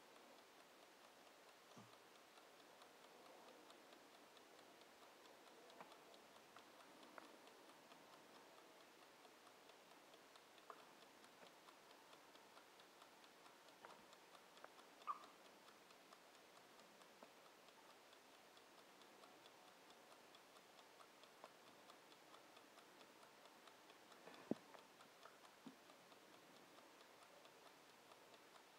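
Mechanical wind-up kitchen timer ticking faintly and steadily. Two sharper clicks stand out, one about halfway through and a louder one later.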